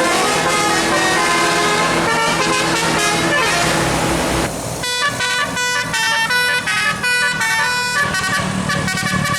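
Tour bus's 'telolet' multi-tone musical air horn playing over the running engine: held horn chords at first, then about halfway through a quick melody of short notes stepping up and down in pitch.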